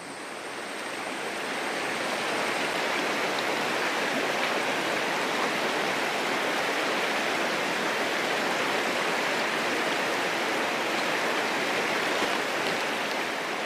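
A shallow, stony river rushing over rocks: a steady, even wash of water that swells up over the first couple of seconds and then holds.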